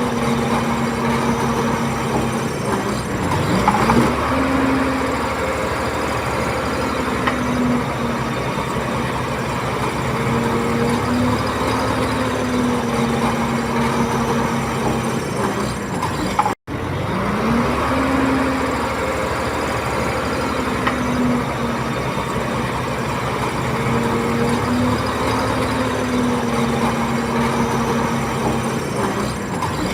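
Komatsu D30P bulldozer's diesel engine working under load, its revs repeatedly sagging and climbing back as the blade pushes. The sound cuts out for an instant a little over halfway through.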